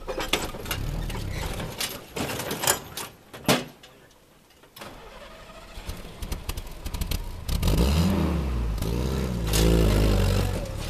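Vintage Willys jeep's engine working through a washed-out trail hole, with a few sharp knocks about two to three seconds in and a brief lull around four seconds. Near the end it is revved up and down hard, loudest as it claws out of the hole.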